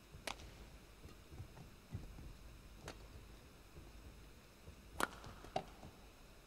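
Badminton rally: sharp smacks of rackets striking the shuttlecock, four in all, the loudest about five seconds in, with a couple of soft low thuds from the players' feet on the court.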